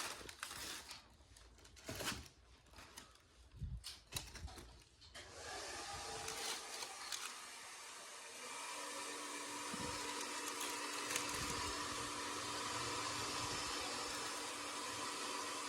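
A few faint crinkles and clicks, then from about five seconds in a small electric motor starts whirring steadily, with a low steady hum added a few seconds later.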